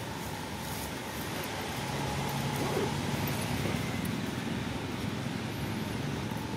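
Steady road traffic noise with a low engine hum, a little louder from about two seconds in.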